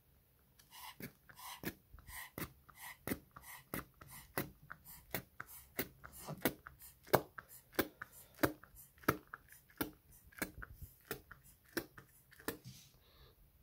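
Rubber inflation bulb of a vintage Reebok Pump collar pump being squeezed over and over, about one and a half squeezes a second, each a short sharp click of air through its valve. The first few squeezes have a slight squeak.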